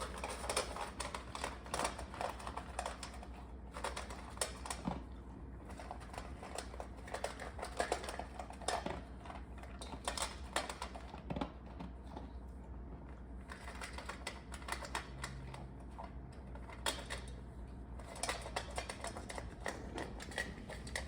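A Labradoodle eating, its chewing making runs of quick, crisp clicks and crunches in bursts.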